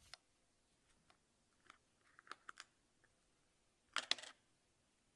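Small plastic jar of pink butter slime being handled and opened: a few faint clicks about two seconds in, then a short, louder cluster of crackly clicks about four seconds in.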